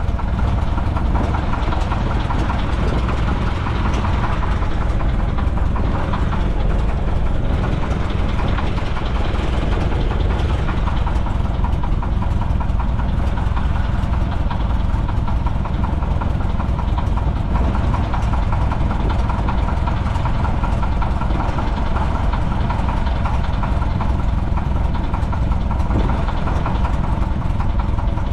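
Piper J-3 Cub's four-cylinder air-cooled engine and propeller running steadily, heard from inside the cockpit, with airflow noise mixed in.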